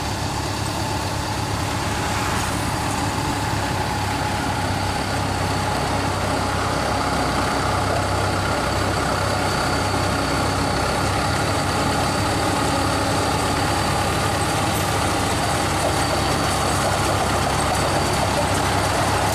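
Engine of a tracked crawler carrier loaded with rice sacks, running steadily as it creeps closer, with a thin high whine over the engine drone and the sound slowly growing louder.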